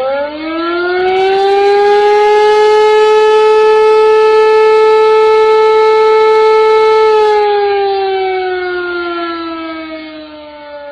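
A siren winding up to a steady wail, holding its pitch for about five seconds, then slowly winding down from about seven seconds in, still sounding at the end.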